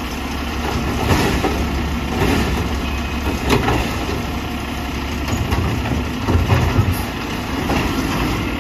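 Mack LR garbage truck's engine running steadily while its Labrie Automizer automated side arm dumps a trash cart into the hopper and lowers it back to the curb, with several knocks and clatters of the cart and falling trash.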